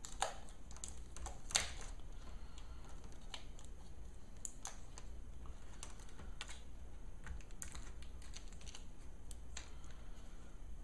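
Scattered light clicks and taps of a laptop LCD panel and plastic parts being handled and lifted back into place in the display lid, with two sharper knocks in the first two seconds.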